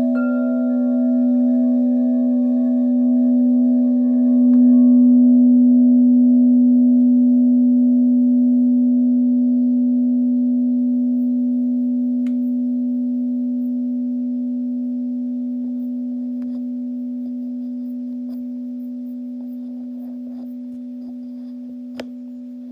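Struck bowl bell ringing with one low, steady tone and a few higher partials, one of them wavering slowly. It is struck softly again about four and a half seconds in, then dies away slowly and evenly.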